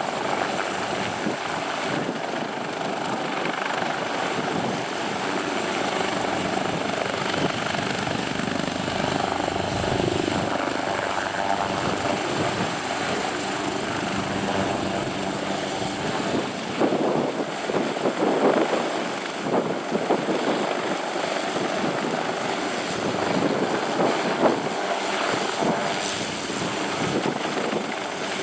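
Leonardo UH-139C twin-turbine helicopter running, its rotor noise steady throughout with a constant high turbine whine above it.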